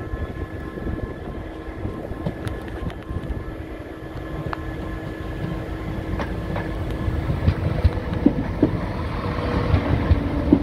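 East Midlands Railway Class 170 Turbostar diesel multiple unit approaching and passing at low speed, its diesel engine growing steadily louder. In the last few seconds, as it draws level, sharp clicks come from its wheels over the track joints and pointwork.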